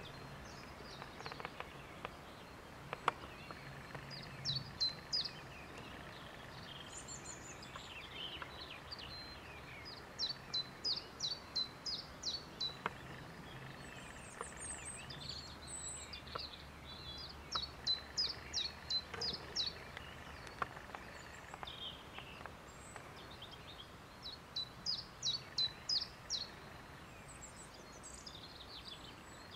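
Songbird singing four times: each song is a short run of quick, repeated high notes, and the songs come about every six to seven seconds. Other birds call faintly in between over a soft outdoor background.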